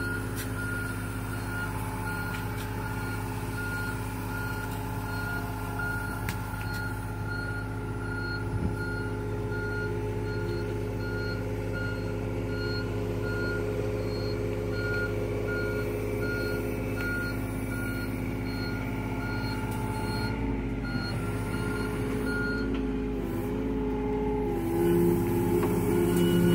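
Mini excavator's diesel engine running steadily while its travel alarm beeps in an even, repeating series as the machine tracks along. The beeping stops a few seconds before the end, and the engine gets louder and changes pitch near the end.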